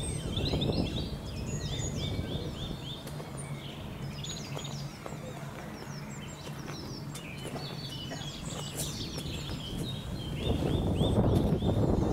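Songbirds singing in repeated runs of quick, falling chirps over a low outdoor rumble. Near the end, louder crunching footsteps on gravel.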